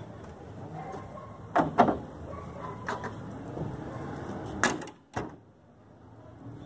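Several sharp knocks and thuds over a steady low hum, the two loudest close together about a second and a half in, with more about three and five seconds in. Just after five seconds the hum drops away suddenly and it stays much quieter until near the end.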